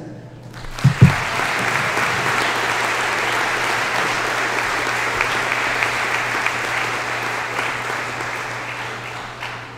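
An audience applauding steadily, tailing off and stopping near the end. Two dull thumps about a second in.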